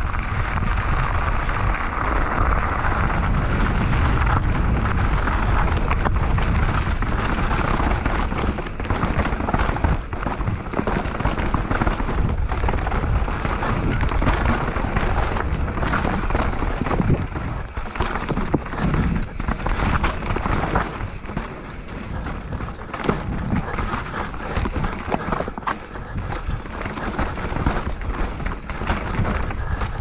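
Helmet-camera sound of a mountain bike descending fast over gravel and rocky trail: steady wind rush on the microphone with a constant rattle and clatter of tyres and bike over stones.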